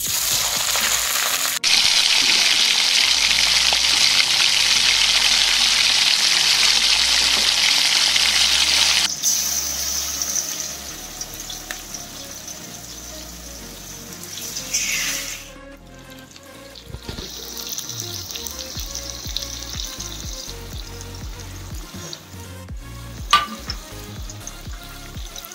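Pieces of hilsa fish coated in mustard paste sizzling in hot oil in a kadai. The sizzle is loud and hissing for the first nine seconds or so as the fish goes in, then settles to a quieter, steady frying.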